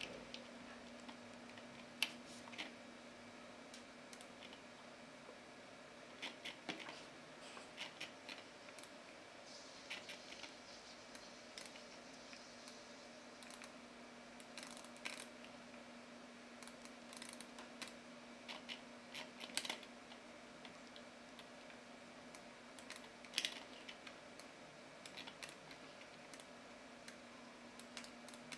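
Scattered clicks of a computer mouse and keyboard, irregular single clicks and short runs, over a faint steady hum.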